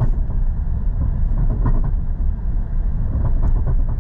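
Road rumble inside a moving vehicle towing an empty trailer, with irregular knocks and rattles from the lightly loaded trailer bouncing behind.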